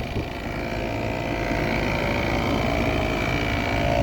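Outdoor unit of a 3-ton Trane XR14 heat pump running in heat mode while frozen up: compressor and fan running steadily as a rough, rumbling hum with a high whine above it. The compressor sounds unhealthy, and the owner is not sure what is wrong with it.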